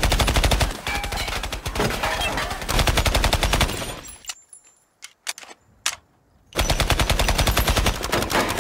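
Rapid automatic fire from an AR-style carbine: a long run of fast shots lasting about four seconds, a lull of about two seconds with only a few single cracks, then another long run of rapid shots.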